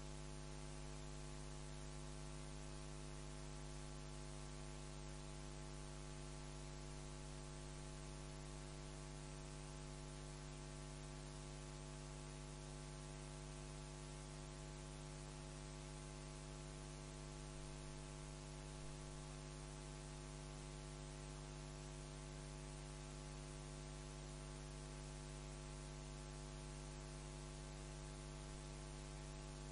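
Steady electrical mains hum with an even hiss behind it, unchanging throughout: the noise of the sound system with nobody at the microphones.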